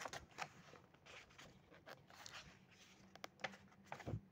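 Near silence: room tone with a faint steady hum and scattered small clicks and rustles.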